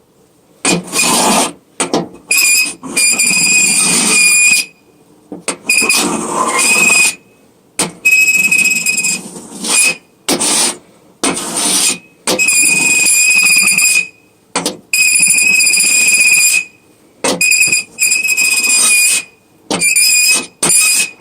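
Nails scraped across metal, producing piercing high-pitched screeches in about a dozen stop-start strokes. Many strokes hold one steady shrill tone over a gritty scraping noise.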